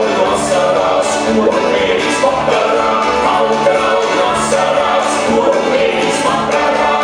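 Latvian folk dance music playing steadily for the dancers, with a steady bass line.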